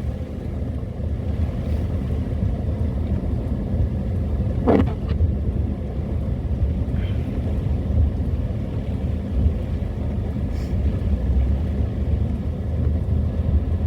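Car driving: steady engine and road rumble, with a brief sharp sound about five seconds in.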